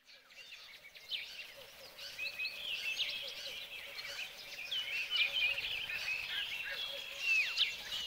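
Several birds chirping and calling in a busy, overlapping chorus of short high chirps and quick down-sweeping notes, fading in from silence at the start.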